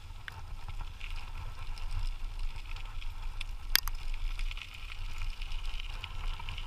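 Dog scooter rolling along a trail, pulled by two dogs: a steady low rumble from the wheels with a gritty hiss over it, and one sharp click about four seconds in.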